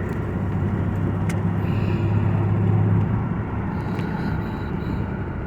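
Engine and road noise of a moving vehicle, heard from inside the cabin: a steady low drone that swells slightly about two to three seconds in.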